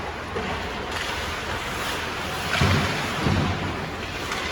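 Steady rushing noise with two low thumps a little over halfway through.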